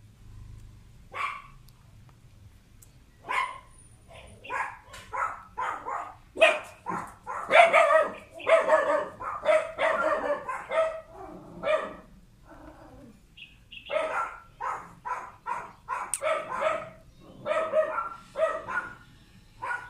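A puppy yelping and barking in quick runs of short calls, with a brief pause about two-thirds through: the vocalizing of a puppy having an epileptic seizure.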